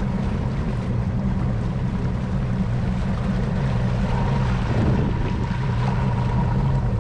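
Motorboat engine running steadily while underway, with wind and water rushing past.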